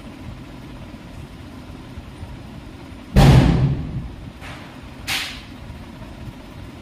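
Two sudden bangs over a steady low rumble. The first, about three seconds in, is the loudest and dies away over about a second. A shorter, sharper one follows about two seconds later.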